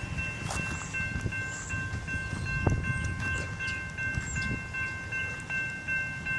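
Electronic railroad-crossing bell ringing on and on in a steady, repeating high-pitched ring. The signals have been tripped by a malfunction on an abandoned line, with no train approaching.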